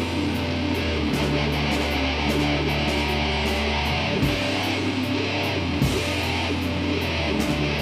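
A rock band playing live, with strummed electric guitars over low held notes that change every second or two, and regular sharp hits cutting through.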